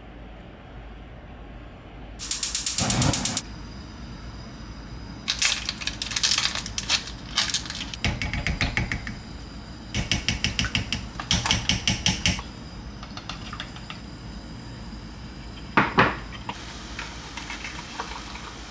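Kitchen utensil work: three bursts of rapid, even clicking strokes, with one sharp knock near the end.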